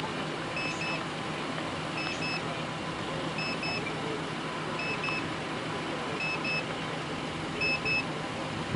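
A faint electronic double beep, two short high tones about a fifth of a second apart, repeating about every second and a half over a steady low background hum.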